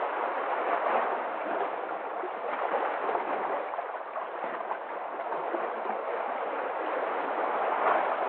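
Sea waves washing in, a steady rush of surf that swells slightly about a second in and again near the end.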